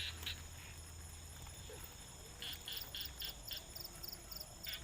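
Night chorus of insects chirping in a steady high pulse, about three to four chirps a second, with two short runs of lower frog-like chirps partway through and near the end.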